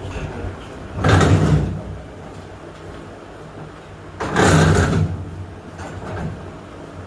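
Two short blasts of air, each under a second and about three seconds apart, over a steady low hum: an electric blower clearing off debris.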